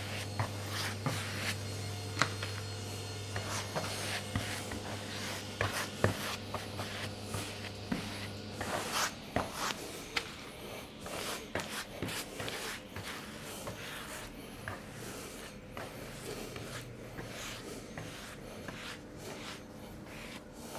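A glue brush scrubbing over a wooden panel, spreading glue for veneering, with scattered light clicks and knocks of handling. A low steady hum stops about eight and a half seconds in.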